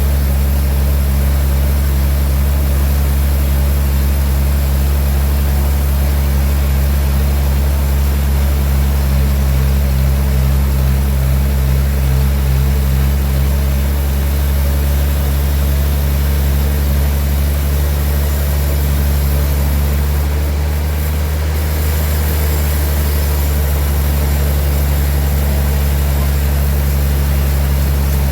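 Sawmill machinery running with a steady low engine drone.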